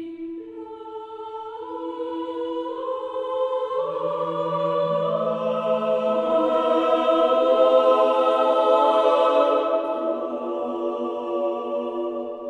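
Choir singing sacred music in long held chords. Voices enter one after another in the first few seconds, and the sound swells to a peak a little past the middle before easing off.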